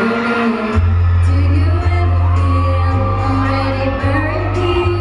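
Live pop song over a public-address system: a woman singing over a backing track, with a heavy bass line coming in strongly a little under a second in.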